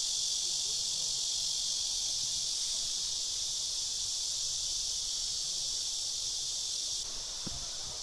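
A steady, high-pitched chorus of summer insects shrilling without a break, dropping slightly in level about seven seconds in.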